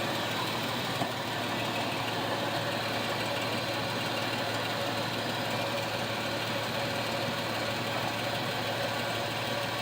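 High-mileage truck's engine idling steadily.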